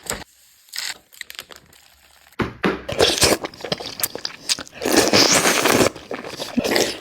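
Close-miked eating: a few light clicks, then from about two and a half seconds in, loud crunchy biting and chewing of crisp food.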